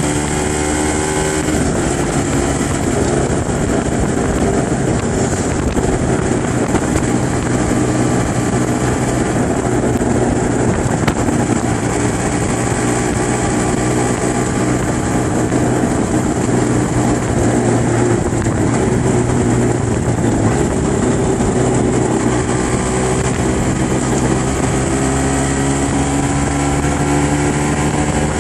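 Aprilia RS125's single-cylinder two-stroke engine running while the bike cruises, heard from the rider's seat. The pitch eases down in the first second or so and climbs again near the end.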